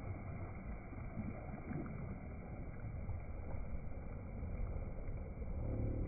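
Small waves washing over a sandy shoreline with light splashing of water, sounding dull and muffled.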